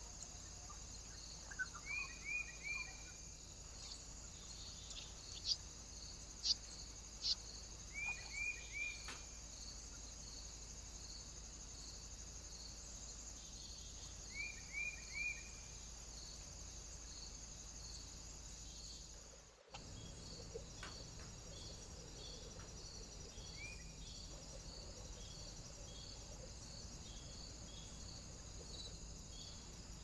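Woodland ambience: a steady high insect trill with evenly repeating pulses, like crickets, under short bird calls of three quick falling chirps, heard three times in the first half. A few sharp ticks stand out about five to seven seconds in, and the sound drops out for an instant about two-thirds of the way through.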